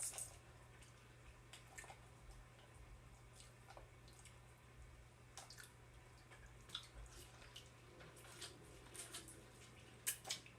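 Faint scattered clicks and small wet sounds of eating, over a steady low hum of the room.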